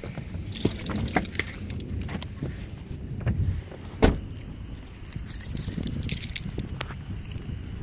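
Low rumble of a vehicle cabin with small rattles and clicks, and one sharp knock about four seconds in.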